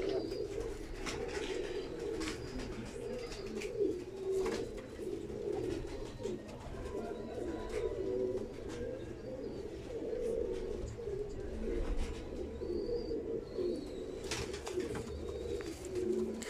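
Several Imam Deen domestic pigeons cooing together in a steady low chorus, with a few short clicks among them.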